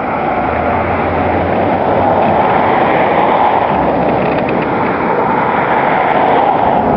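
Steady, loud rushing noise with a low hum underneath.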